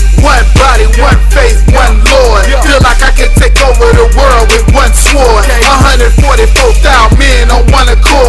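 Hip hop music: a heavy bass line under a steady kick drum about twice a second, with a bending melody line over it.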